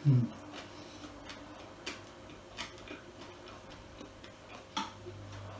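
Close-miked chewing of a mouthful of burger with the mouth closed: a brief low hum right at the start, then sparse wet mouth clicks, one every second or so.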